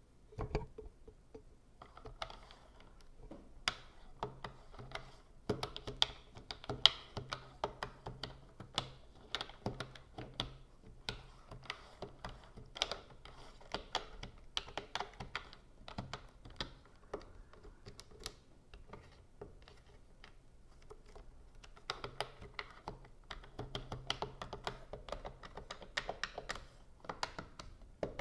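Computer keyboard being typed on, a steady run of irregular key clicks with a few louder taps.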